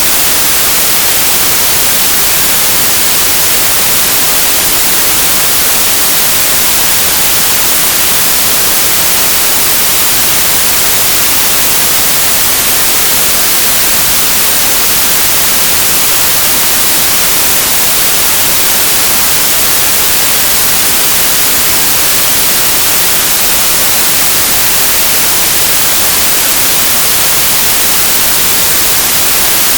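Synthesized white noise: a steady, even hiss with its energy spread flat across the frequencies, sounding bright and treble-heavy, unchanging throughout.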